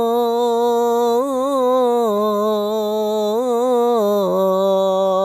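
A man singing the adhan in maqam Jiharkah, drawing out a phrase of "Allahu akbar" in a long, ornamented melisma. The voice wavers and turns without a break, and settles on a lower held note about four seconds in.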